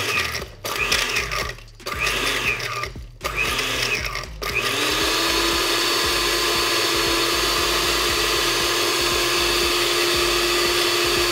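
Countertop blender blending a liquid cocktail: the motor is pulsed in a few short bursts, each spinning up and winding down, then runs steadily at a constant pitch.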